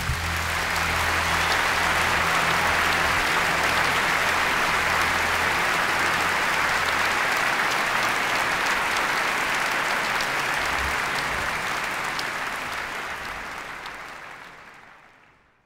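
A crowd applauding steadily, dense clapping that fades out over the last few seconds.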